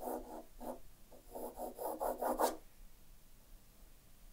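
Graphite pencil scratching across drawing paper in quick short strokes, as light construction lines are sketched. Two runs of strokes, stopping about two and a half seconds in.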